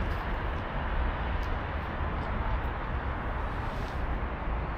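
Steady city street noise: a low rumble and an even hiss, as of traffic, with a few faint ticks.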